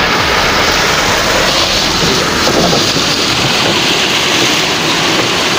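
Rushing water of a rain-swollen stream pouring over a small fall, a loud steady rush.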